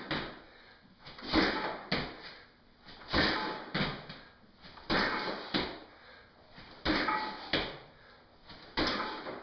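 Box jumps onto a weight bench: shoes thud onto the bench and then back on the floor, in pairs about every two seconds, five times over.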